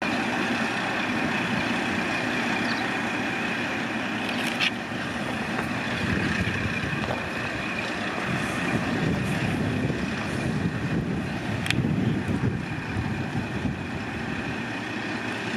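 KiHa 40 diesel railcar's engine idling steadily while the railcar stands at the platform. Two short clicks break in, about four and a half seconds in and again near twelve seconds.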